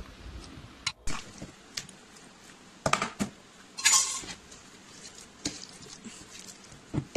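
Metal masher pressing into boiled cassava pieces in a plastic bowl, with irregular clinks and knocks of the masher against the bowl and a louder clatter about four seconds in.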